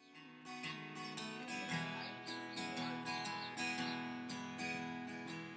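Acoustic guitar playing a slow intro, picked and strummed, fading in from silence at the start.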